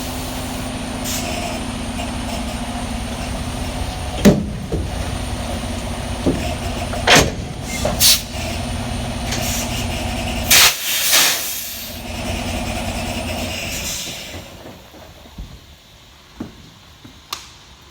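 Semi-truck diesel engine idling, with several sharp clunks from the coupling as the fifth wheel couples to the trailer. A loud burst of air-brake hiss comes about ten seconds in; after it the engine hum drops away and the sound grows quieter.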